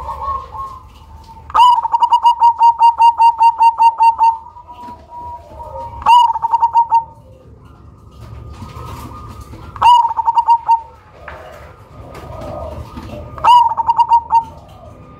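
Black cemani zebra dove (perkutut) cooing: a long run of rapid staccato coos about a second and a half in, then three shorter bursts a few seconds apart.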